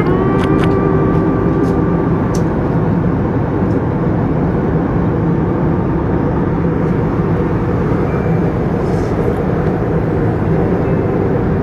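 Jet airliner engine noise heard from inside the cabin: a steady, loud, low rush, with a whine over it for the first couple of seconds.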